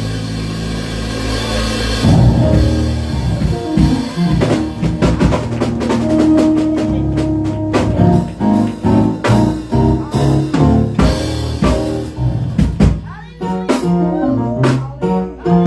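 Music with drum kit and bass: a held low chord for about two seconds, then a lively rhythmic passage of short notes with frequent drum hits.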